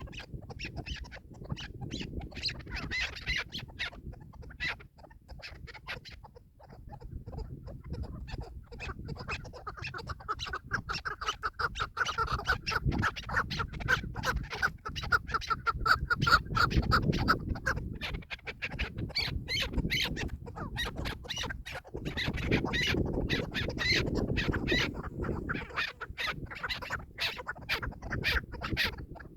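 Chukar partridges calling in rapid, repeated clucking notes, with a run of fast chattering notes in the middle, over a low rumble.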